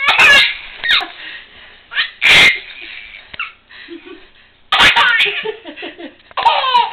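Baby laughing at a furry toy: two sharp breathy squeals in the first few seconds, then a run of quick rising-and-falling laughs near the end.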